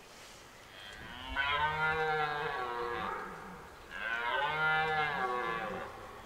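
Red deer stag roaring in the rut: two long roars, each about two seconds, the first starting about a second and a half in and the second about four seconds in.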